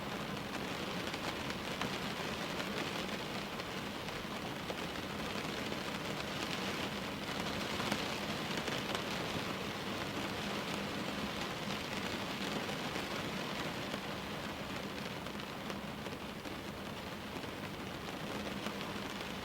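Steady rain falling at a window: an even hiss with faint scattered drop ticks and a faint low hum underneath.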